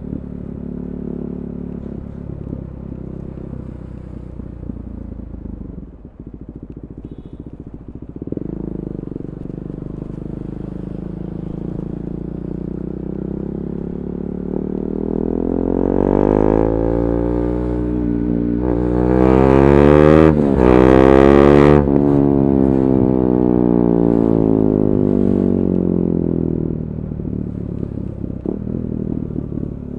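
KTM 390 Duke's single-cylinder engine through an Akrapovic Moto2 slip-on exhaust with the catalytic converter removed. It runs low and even for a while, then climbs steadily in pitch and loudness with a brief break near the top, and falls away again as the revs drop.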